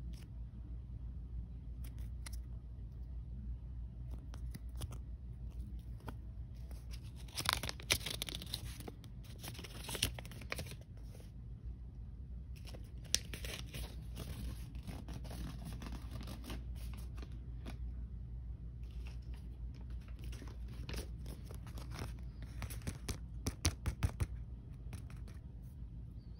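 Paper and card packaging handled close to the microphone: rustling and crinkling with scattered small clicks and taps, busiest about a third of the way in and again near the end, over a low steady hum.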